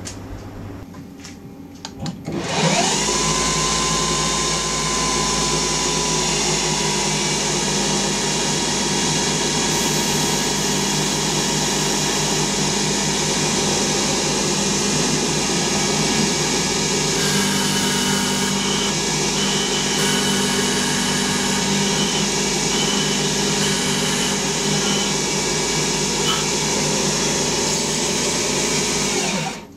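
Small CNC lathe spindle spinning up about two and a half seconds in with a rising whine, then running steadily at around 3000 rpm with a timber blank in the collet, and cutting off just before the end.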